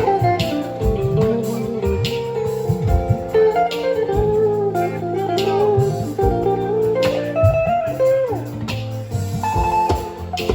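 Live band sound check: guitar-led music with a bass line and a steady beat.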